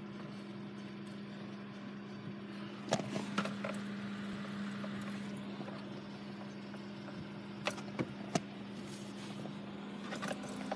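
Steady hum inside a parked car's cabin, from the running car, with a few short clicks and knocks: a cluster about three seconds in and another about eight seconds in.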